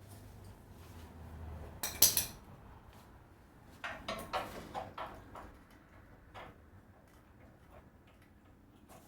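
Metal hand tools clanking and clinking on a radiator core support bolt: a sharp clank about two seconds in, then a quick run of smaller clinks. The bolt is one the mechanic suspects has stripped.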